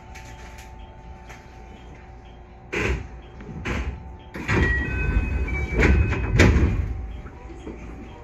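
Sliding passenger doors of a JR West 221 series electric train working at a station stop: two sharp knocks, then a longer noisy stretch with heavy thuds, over the steady hum of the stopped train.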